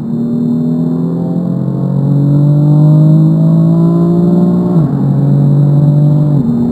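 BMW M4 Competition's twin-turbo inline-six under full throttle, heard from inside the cabin. Its pitch climbs steadily through third gear, then drops sharply at an upshift about five seconds in and again at another upshift near the end.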